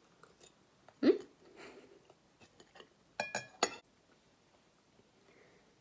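Close-up chewing of a mouthful of food, with a short loud mouth sound about a second in. A few sharp clinks of metal cutlery against a plate follow about three seconds in.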